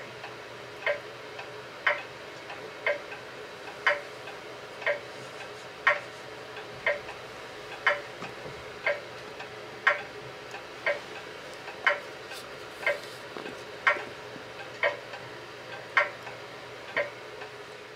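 A clock ticking about once a second, with an alternating tick-tock, over a faint steady hum.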